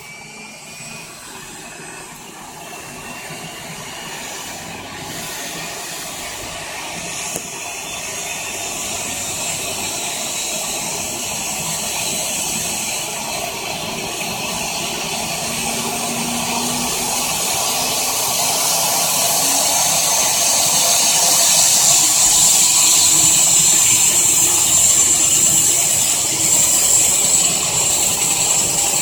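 EC-145 helicopter's turbine engine spooling up during its start, a hissing rush with a high whine that grows steadily louder.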